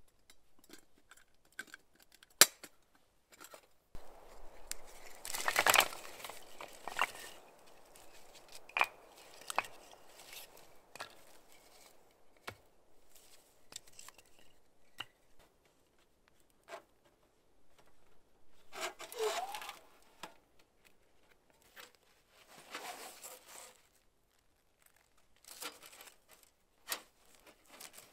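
Camping gear being taken down and packed: scattered sharp metallic clicks and knocks from a portable wood stove and its pipe sections being handled, with several bursts of rustling a few seconds long.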